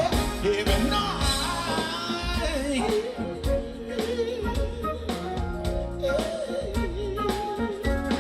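Live band playing a funk-soul groove with drums, bass and keys, with a wordless vocal ad-lib line that wavers up and down in pitch through the middle.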